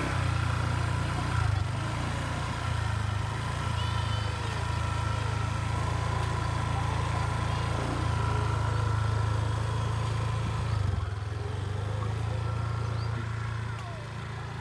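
Motor scooter engine idling steadily, then pulling away near the end as the sound fades.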